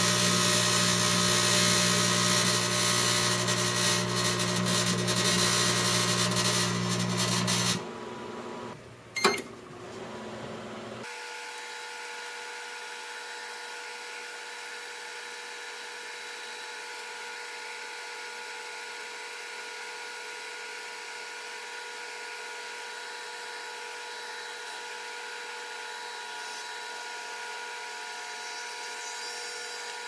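Microwave oven running with a light bulb inside: a loud, steady hum with a buzzing hiss over it, which cuts off suddenly about eight seconds in. A sharp click follows about a second later, then a quieter steady hum with several high steady tones.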